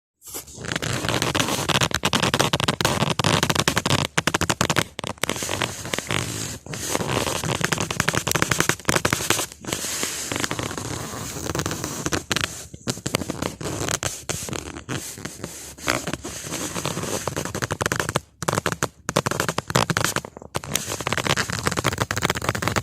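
Something being rolled, making a harsh crackling, rattling scrape that runs on and on with a few brief breaks.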